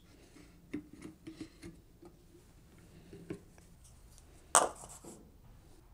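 Light handling sounds of plastic oil bottles and motor parts: a few soft clicks and taps, then one sharp plastic clack about four and a half seconds in, as the engine is readied for fresh oil.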